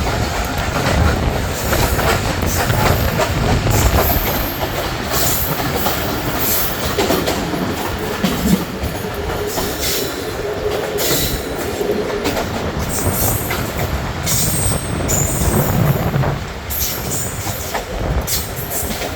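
Express passenger train rolling slowly into a station, its wheels clattering steadily over rail joints, with brief high squeals from wheels and brakes now and then.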